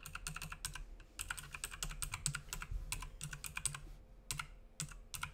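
Typing on a computer keyboard: quick runs of key clicks with short breaks, and a brief pause about four seconds in.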